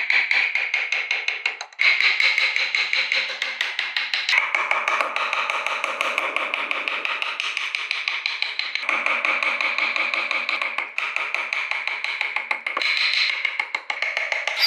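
A hand carving gouge cutting into wood, making a dense, fast crackle as the edge shears through the fibres and curls off shavings. The crackle comes in long passes with a few brief pauses between cuts.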